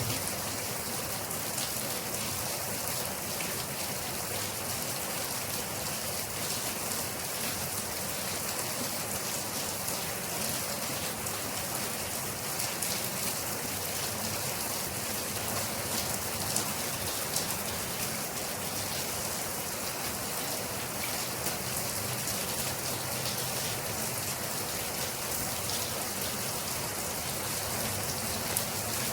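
Steady rain, with the patter of many drops striking a surface.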